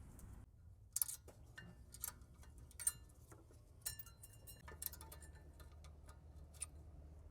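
Light metallic clicks and clinks from brake pads and caliper-bracket hardware being handled. About a dozen sharp, irregular ticks, a few of them ringing briefly.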